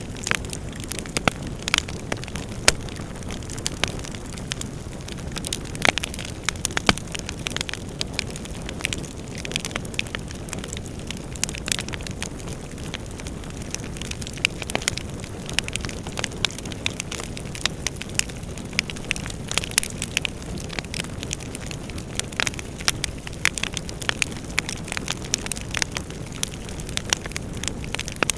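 Fireplace fire burning: a steady low rush of flames with frequent, irregular sharp crackles and pops.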